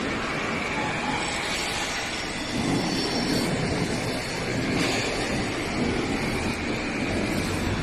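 Howo vacuum sewage suction truck running: a steady mechanical noise with faint high whining tones, a little louder after about two and a half seconds.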